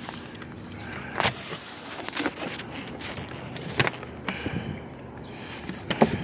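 Large cardboard boxes being handled and shifted: cardboard scraping and rustling, with a few sharp knocks.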